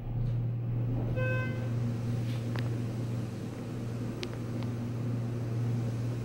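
Schindler HT 330A hydraulic elevator's pump motor starting and running with a steady low hum as the car rises, heard from inside the cab. A short electronic tone sounds about a second in, with a few faint clicks.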